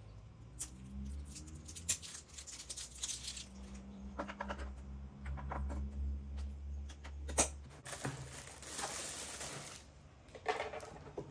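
Small clicks and taps of AA batteries being pressed into the battery compartment of a Boss GT-1B multi-effects pedal, with plastic packaging crinkling for about two seconds some eight seconds in.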